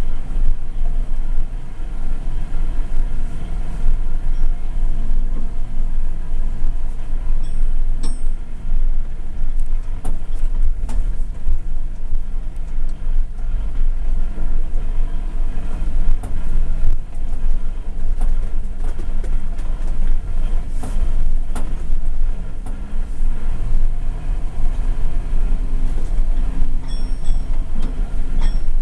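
Mercedes-Benz Unimog engine and drivetrain droning steadily while driving, heard from inside the cab, with a few sharp knocks and rattles from the cab over the rough track.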